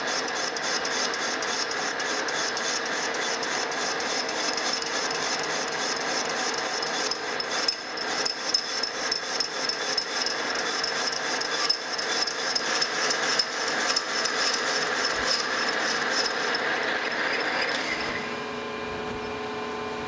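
Metal lathe running with a carbide boring bar taking an interrupted cut, cleaning braze out of a cast-iron lever casting in a four-jaw chuck, with an even, rhythmic ticking as the tool meets the part each turn. The cut and the lathe stop about 18 seconds in.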